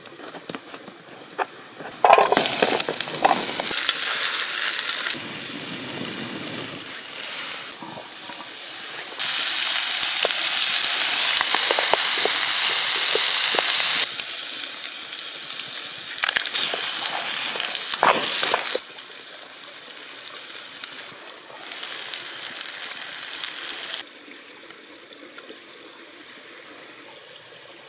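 Potatoes sizzling in a frying pan over a campfire, heard in several edited stretches: the sizzle changes in loudness from one cut to the next and is loudest for several seconds from about nine seconds in. Short knocks turn up now and then over the sizzle.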